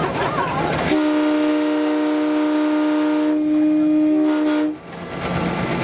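Diesel locomotive horn on an ex-CN FP9A sounding one long chord of several notes for a grade crossing. It starts about a second in and stops sharply near the end. A steady rushing noise from the moving train fills the gaps.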